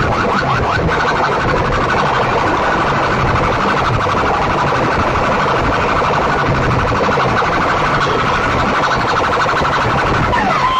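Large stacked horn-loudspeaker sound system blaring a fast, rapidly repeating siren-like warble effect over low bass.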